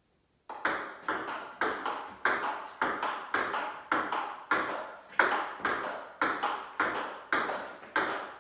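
Table tennis rally: the ball clicking in turn off the paddles and the Joola table, about three knocks a second, each with a short ring. It starts about half a second in, out of silence.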